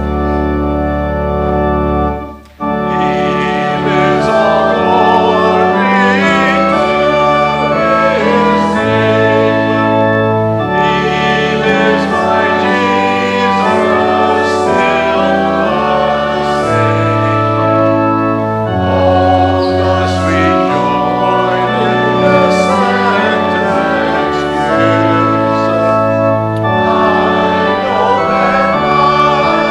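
Church organ playing a hymn in sustained chords, with voices singing along. A held chord breaks off about two seconds in, and the next phrase follows at once.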